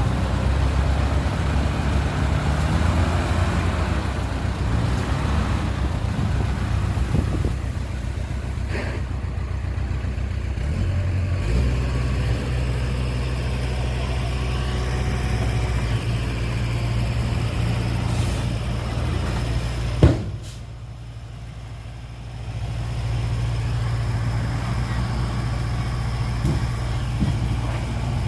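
Heavy diesel engine of earthmoving machinery running steadily, its note dropping to a lower, steadier hum about eleven seconds in. A single sharp bang near twenty seconds, after which the sound falls much quieter for about two seconds, then the engine drone comes back.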